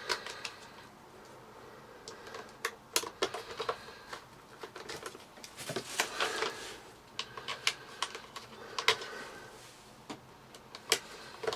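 Scattered light clicks and rattles of plastic parts and screws as a Dyson V6 cyclone assembly is screwed back together by hand, with a few short scraping turns.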